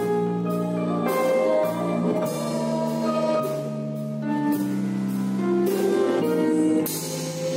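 A live band playing a slow song: chords held on a Roland electronic keyboard over low guitar notes, with a drum kit keeping time on cymbals and drums.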